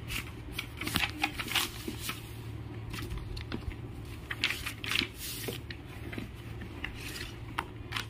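Paper handling as a workbook page is lifted and turned: a run of short, irregular rustles and crinkles over a steady low hum.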